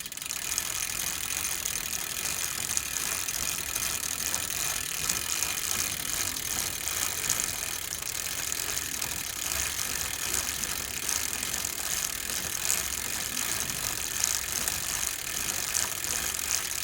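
Bicycle drivetrain ticking steadily: the rapid clicking of the freewheel's ratchet as the chain runs over the sprockets.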